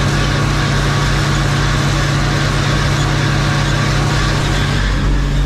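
Farm tractor's diesel engine running steadily at working speed, a constant drone with a fast low throb.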